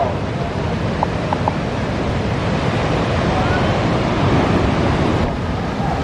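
Ocean surf breaking and washing in a steady rumble, with wind noise on the microphone.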